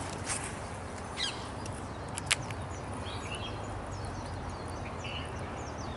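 Small birds chirping over a steady low background rumble, with two sharp clicks, the louder one about two seconds in.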